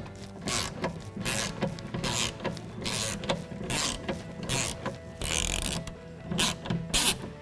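A 10mm socket on a ratchet wrench unscrewing a door handle mounting screw. The ratchet clicks in short bursts about every half second as it is swung back and forth.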